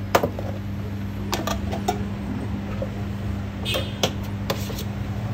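Metal spoons clinking and knocking against stainless steel serving trays, several separate sharp taps, as chutney and toppings are spooned out. A steady low hum runs underneath.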